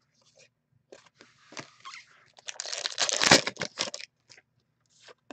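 A hockey card pack's plastic wrapper being torn open and crinkled by hand. There are a few light handling clicks, then a dense tearing and crinkling burst lasting about a second and a half around the middle, then a few more clicks.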